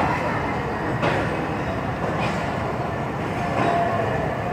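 Passenger train rolling slowly through a station, heard from on board: a steady rumble of the coach with sharp wheel clacks over rail joints about once every second.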